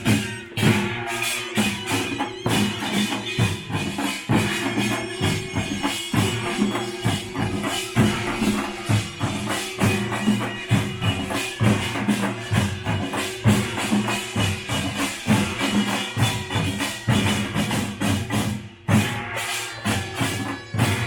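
Korean pungmul percussion band playing a fast, dense rhythm of drums with jangling metallic clangs over a held low tone, with a short break near the end before it picks up again.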